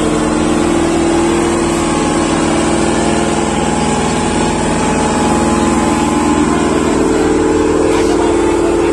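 Tractor engine running steadily under heavy load as it pulls four trailers loaded with soil. Its pitch rises slightly about five seconds in.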